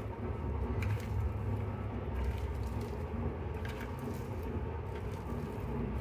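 A hand squishing and tossing chopped banana flower with salt and turmeric in a plastic colander, giving soft rustling, over a steady low rumble.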